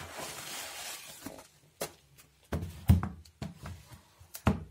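Paper padded mailer rustling as its contents are slid out, then several knocks and clicks of shrink-wrapped CD album cases being handled and set down, the loudest about three seconds in.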